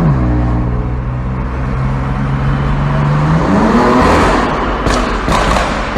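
BMW M4 Competition's twin-turbo straight-six exhaust in a tunnel: the revs drop, hold steady and low for about three seconds, then the car accelerates hard with the engine note climbing. Two short sharp cracks come near the end.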